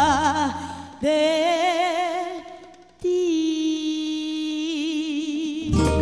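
A woman singing the closing phrases of a song into a microphone, holding long notes with wide vibrato. The backing music drops out about a second in, leaving her voice alone, and comes back with a final chord near the end.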